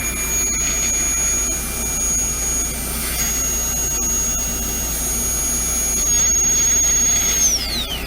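High-speed air-turbine dental drill whining steadily at a high pitch, cutting out briefly about three seconds in, then spinning down with a falling whine near the end as it is released. Underneath runs the steady rush of the ventilation fans.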